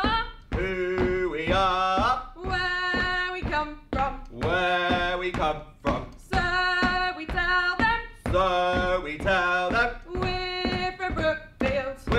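A man and a woman singing a call-and-response hello song, each short line sung and then echoed back.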